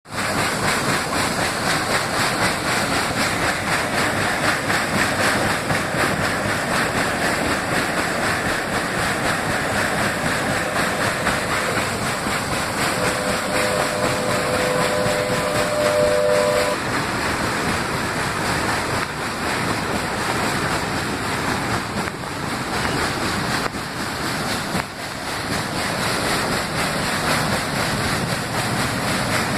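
Water rushing steadily through open dam gates. About halfway through, a steady held tone of two close pitches sounds for about four seconds.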